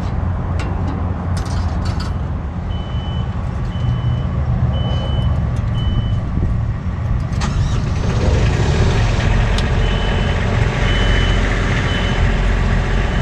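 A vehicle engine running steadily, with a reversing alarm sounding in two runs of about four evenly spaced high beeps. A few sharp clicks come early on, and the engine noise grows a little brighter about halfway through.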